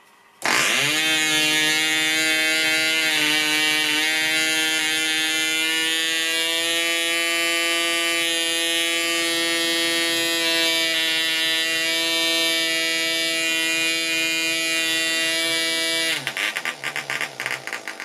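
PAW .55 model diesel engine flicked over by its propeller and catching at once, then running steadily at high revs while its compression screw is adjusted. About 16 seconds in it breaks into a rapid sputtering misfire and stops.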